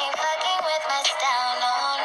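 Background music: a song with a sung, pitch-processed vocal line over a steady backing.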